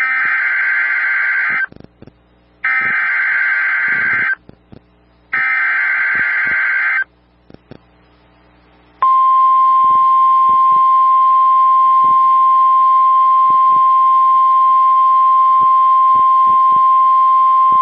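Emergency Alert System SAME header: three bursts of warbling digital data tones, each about a second and a half long with a short gap between. After a pause of about two seconds comes the single steady 1050 Hz NOAA Weather Radio alarm tone, held for about nine seconds. Together they announce an encoded severe thunderstorm warning.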